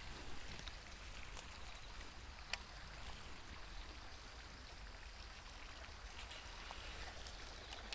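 Faint, steady outdoor hiss with a few soft, sharp clicks, the clearest about two and a half seconds in and again at the very end.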